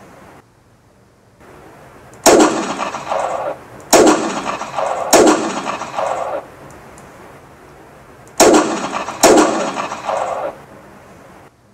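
Homemade rubber-band gatling gun firing: five sharp cracks, the first three about a second and a half apart, then a pause and two more close together, each trailing off over about a second.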